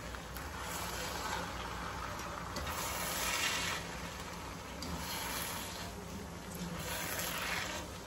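Rice noodles and shredded cabbage being stir-fried in a nonstick pan, tossed with a slotted spatula and a fork: a hissing sizzle with soft scraping, louder in two swells about three and seven seconds in, over a steady low hum.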